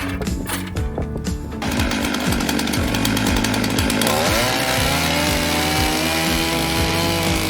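A power saw starts up about two seconds in. Its pitch rises near the middle and then holds steady, over background music with a steady beat.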